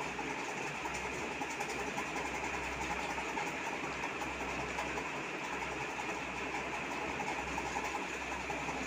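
Steady whirring background noise, with a low hum underneath that swells and fades.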